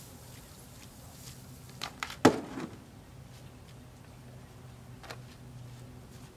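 A quick cluster of three sharp knocks about two seconds in, the last the loudest, then one fainter knock near five seconds, over a steady low hum.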